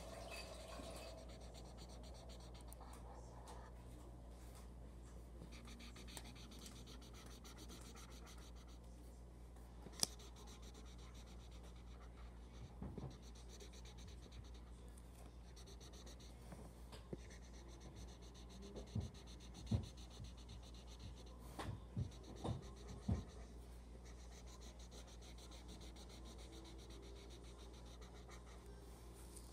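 Yellow felt-tip marker scratching and rubbing faintly across paper as an area is coloured in, with a few light taps, mostly in the second half.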